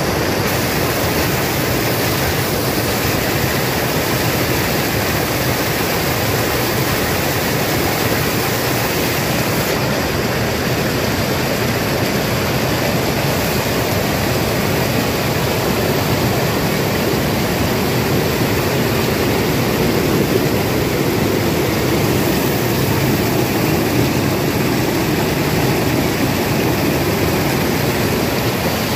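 Dam spillway in flood: a torrent of white water rushing over the concrete steps, loud and steady throughout.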